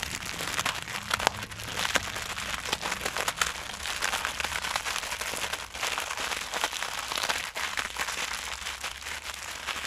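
A block of dry instant noodles being crushed by hand inside its sealed plastic packet: the wrapper crinkles continuously, with many sharp crackles of the noodles breaking into small pieces.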